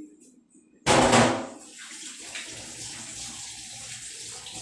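Kitchen sink tap turned on about a second in: water gushes out with a loud start, then runs steadily into the sink.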